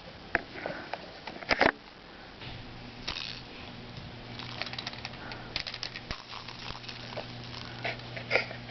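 A baby's short sneeze about a second and a half in, followed by scattered light clicks and rattles over a faint steady hum.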